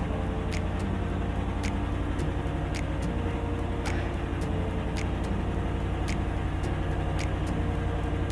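Saen Saep canal express boat's diesel engine running with a steady low drone, with a light ticking about twice a second over it.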